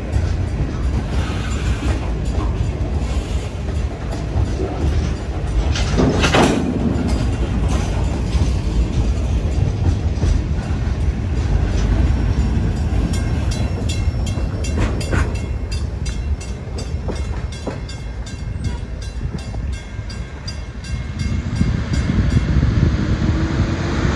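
Freight train of loaded centerbeam flatcars rolling past: a steady rumble of steel wheels on rail with regular clicking over the rail joints. Sharp knocks sound about six seconds in and again about fifteen seconds in.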